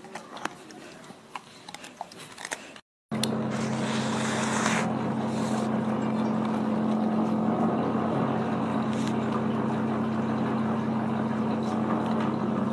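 A golden retriever crunching raw broccoli: a run of sharp, crisp clicks. After a brief dropout comes a steady, louder low hum with a hiss over it, which lasts to the end.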